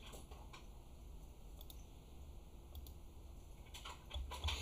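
Faint, scattered clicks of a computer mouse, a few more coming close together near the end, over a low steady hum.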